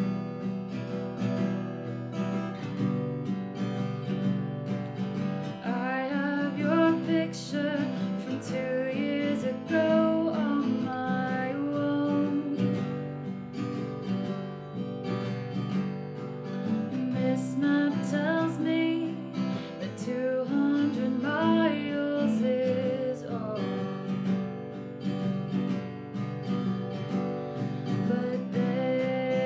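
An acoustic guitar song with steady strummed chords throughout. From about six seconds in, a wavering melody line plays over the chords.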